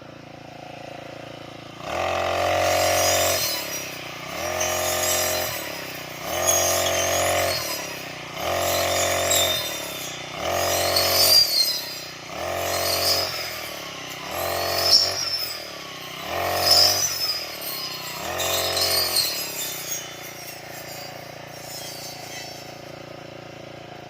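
Brush cutter engine cutting grass. It is revved up about nine times, roughly every two seconds, with the blade swishing through grass on each surge, and it settles back to a lower steady run in between and at the start and end.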